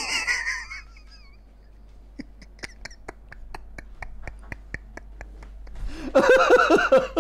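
Men laughing hard: a high, wavering squeal of laughter fading out in the first second, then a run of quieter, evenly spaced wheezing gasps at about four a second, breaking into loud open laughter near the end.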